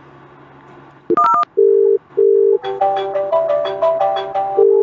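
3CX softphone placing a VoIP call. About a second in there is a short electronic beep, then the ringback tone sounds as pairs of steady tone bursts, a double ring, with a ringtone melody of stepped notes between the pairs.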